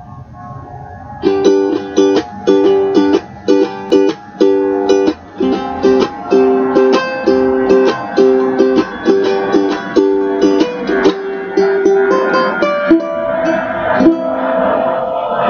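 Ukulele strummed in a steady rhythm of chords, starting about a second in; the chord pattern changes near the end.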